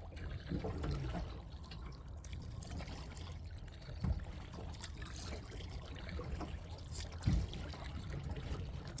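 Kayak paddle dipping and dripping water as the kayak is paddled, over a steady low rumble, with two sharp knocks about four and seven seconds in.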